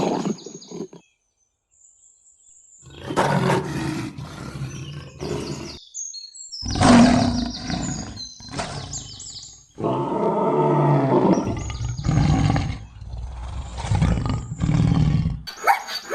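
Lions roaring and growling in several separate bouts, each starting and stopping abruptly, with short gaps between them and a near-silent pause about a second in.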